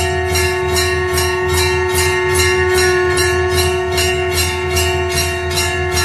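Temple bells rung rhythmically for an aarti, about three strikes a second, over a steady held tone.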